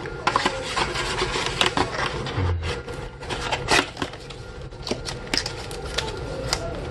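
Small product packaging being handled: a cardboard box and its insert rubbed and shuffled, with a string of irregular clicks and light knocks.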